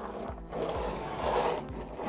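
A 7-ply cruiser fingerboard's small wheels rolling across a wooden table between tricks, a steady rolling rumble with no pop or landing clack. Background music plays underneath.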